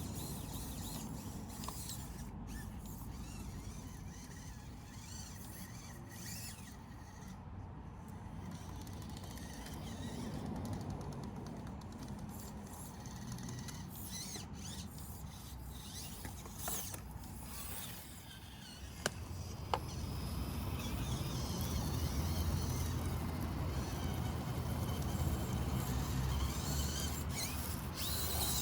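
A 1/24-scale Axial SCX24 micro rock crawler driving over rocks, its small motor and gear drivetrain whirring with scattered plastic clicks and knocks. Two sharper clicks come about 19 seconds in, and it runs louder after that.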